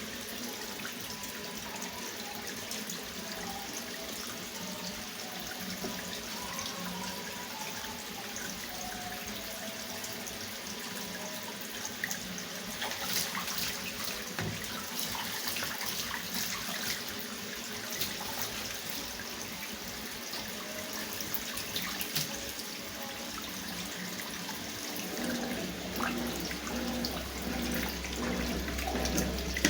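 Consul CWS 12 washing machine filling with water, a steady rush of water pouring into the tub. A low hum comes in near the end.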